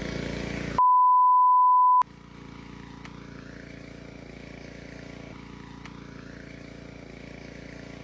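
A loud, steady single-pitch bleep, the kind of tone dubbed over a clip to censor it, lasts just over a second near the start. Before and after it, a motor runs with a steady drone; it is quieter after the bleep.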